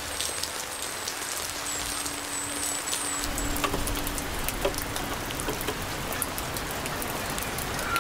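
Steady monsoon rain falling, with many sharp drip ticks through the downpour.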